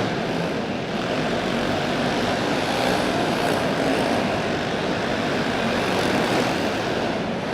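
Racing karts' small engines running at speed together, a steady buzzing drone.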